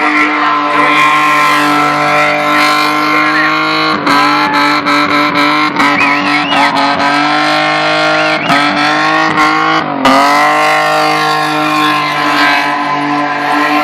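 Car engine held at high revs in a burnout, tyres squealing. The engine note wavers and stutters through the middle, drops sharply about ten seconds in, then climbs back and holds steady.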